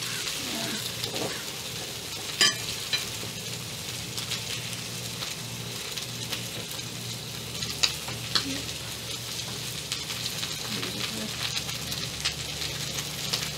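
Banh khot batter of rice flour and coconut milk sizzling steadily in the wells of a mini pancake pan. A few sharp clicks of chopsticks against the pan stand out, the loudest about two and a half seconds in and again near eight seconds.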